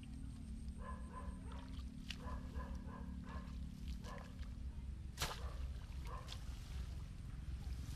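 A steady low rumble, with short runs of a repeating pulsed animal call in the first half. A single sharp strike about five seconds in as a hoe blade is driven into the ground.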